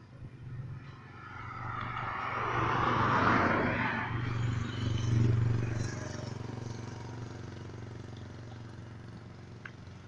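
A motor vehicle passing close by: a low engine hum with road noise that swells to its loudest about three to five seconds in, then fades away.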